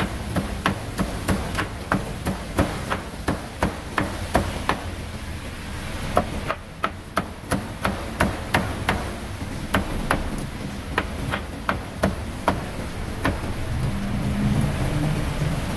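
Cleaver chopping grilled meat on a chopping board: quick, even strokes about three a second, with a short pause about five seconds in, stopping about thirteen seconds in.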